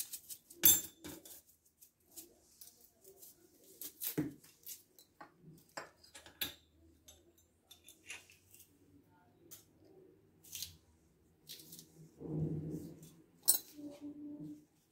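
Scattered light clicks and taps of a metal spoon against the dishes while salt and cumin are sprinkled over raw anchovies on a plate, with a longer rustling scrape near the end.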